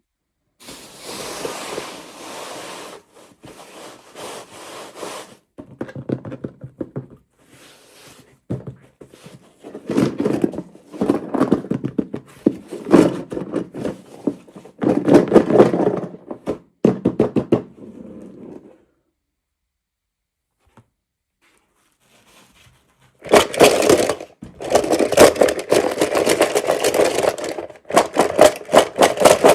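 Toy packaging being handled and opened: bursts of crinkling, scraping and knocking, with a few seconds of silence about two-thirds of the way through.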